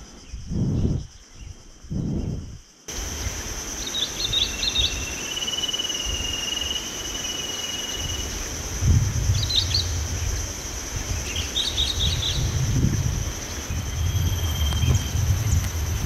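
Outdoor nature ambience: a steady high-pitched insect drone with short bird chirps and a thin whistled bird note over it, and low wind rumble on the microphone. The first few seconds hold only low swells of wind noise before the insect drone comes in.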